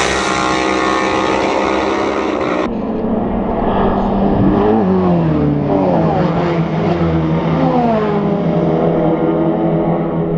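Racing superbikes at high revs on a closed public road. A dense, high-revving engine note stops abruptly a few seconds in, then more bikes go by, their engine notes falling in pitch as each one passes and rising again through the gears.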